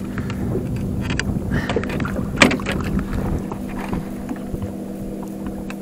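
Fishing boat on the water: a steady low hum under water and wind noise, with one short sharp knock about two and a half seconds in.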